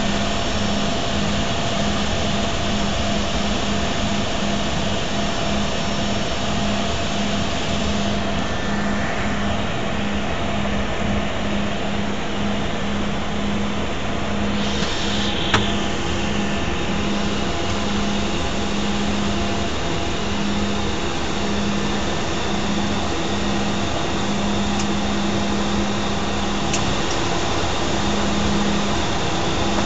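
Cessna 208 Grand Caravan's turboprop engine and propeller running steadily at low power, heard from inside the cockpit as the aircraft taxis. It makes a loud, even rush with a droning tone that wavers and breaks up every second or so, and a single sharp click about halfway through.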